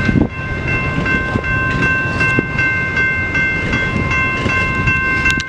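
Electric railroad crossing bell, a General Signals type 2, ringing steadily with evenly repeated strikes and a lasting metallic ring, over a low rumble.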